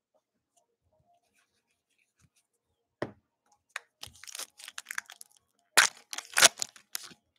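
Foil trading-card pack wrapper being torn open and crinkled, in crackly bursts from about four seconds in, loudest near the end. A single soft knock comes about three seconds in.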